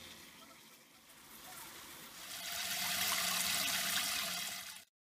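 Running water pouring and splashing over a whole fish in a metal mesh strainer as it is rinsed. The water starts faint, turns to a steady loud splashing about two seconds in, and cuts off abruptly near the end.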